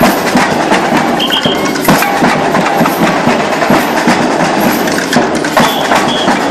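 Street percussion band playing a dense, fast groove on large silver bass drums (surdos), snare drums and shakers. Short high tones come through briefly twice, about a second in and near the end.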